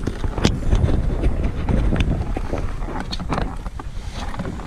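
Wind buffeting the microphone as a low rumble, with scattered sharp clicks and knocks.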